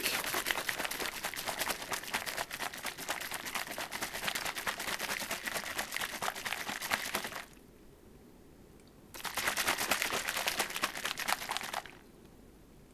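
Plastic shaker bottle of thick homemade shake being shaken hard, a fast rattling slosh. It runs for about seven seconds, stops for a second and a half, then goes on for another two or three seconds before stopping.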